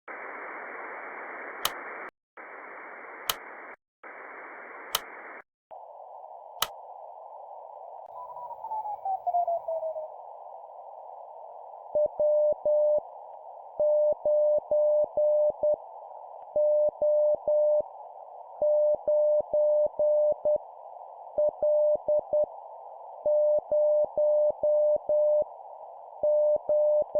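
Morse code sent as a steady tone of about 600 Hz, keyed in dots and dashes at 10 words per minute, spelling groups of random letters and numbers over a steady hiss. For the first dozen seconds there is no code: three bursts of wide static broken by sharp clicks, then a narrower hiss with a whistle that slides down in pitch, before the first characters start about twelve seconds in.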